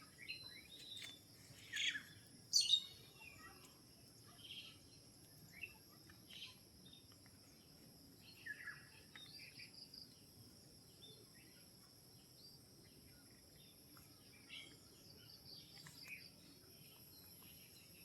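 Wild birds chirping and calling in short, scattered notes, loudest about two seconds in, over a steady high-pitched whine.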